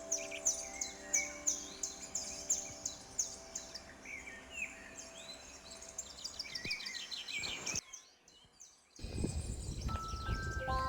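Birds singing, a run of quick, repeated high chirps and short warbled phrases, over soft music notes that fade out. About eight seconds in the sound cuts to near silence, then a low rumbling noise starts, and new chime-like music notes begin near the end.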